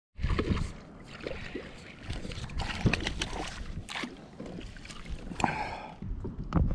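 Hooked largemouth bass splashing and thrashing at the surface beside a kayak as it is reeled in and scooped into a landing net, with water sloshing and irregular knocks and clicks of the tackle and net.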